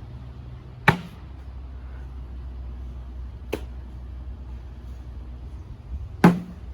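Cornhole bags thudding onto the wooden board: a loud hit about a second in, a fainter one midway and another loud hit near the end.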